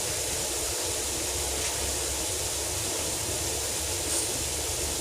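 A steady, even hiss of noise at a constant level, with no distinct events.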